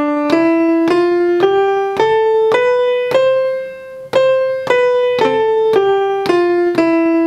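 Sampled piano played from the Maschine Studio's pads: a C major scale, one note about every half second, rising to the top C, which is held briefly, then falling back down note by note.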